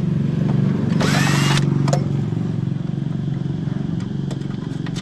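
Cordless drill-driver spinning up in one short whir of about half a second, about a second in, driving a screw on a fibre-optic cable cabinet's mounting plate. A steady low mechanical hum, like an idling engine, runs underneath, with a few faint clicks.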